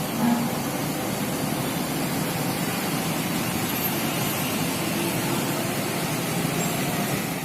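Steady vehicle engine noise, with a brief louder sound just after the start.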